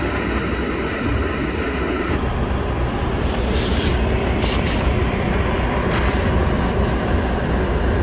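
Steady low rumble and rushing noise heard from inside a car in a snowstorm: the vehicle's running noise mixed with wind.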